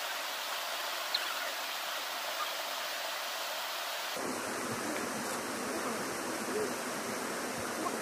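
Steady hiss with a few faint crackles from a fire burning in a small portable brazier grill.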